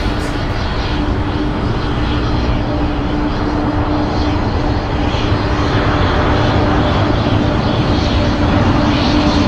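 Airliner jet engines passing close: a continuous rush with a steady hum note underneath, slowly growing louder.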